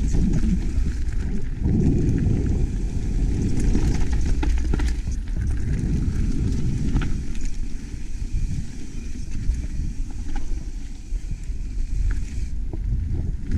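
Mountain bike riding downhill over a rough trail: a steady wind rumble on the microphone, with scattered clicks and rattles from the tyres and bike.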